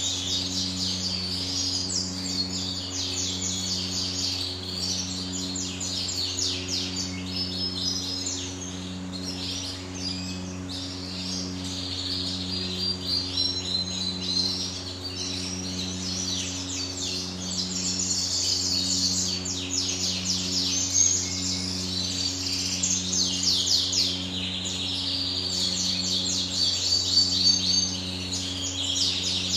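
Caged canaries singing and chirping continuously in rapid trills and twitters. Beneath them runs a steady low mechanical hum with a tone that pulses about once a second.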